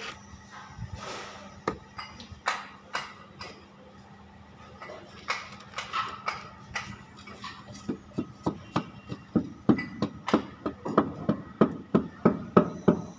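Sharp knocks of wall tiles being tapped into their bed of adhesive. There are a few scattered taps at first, then from about eight seconds in a quick run of two to three taps a second that grows louder.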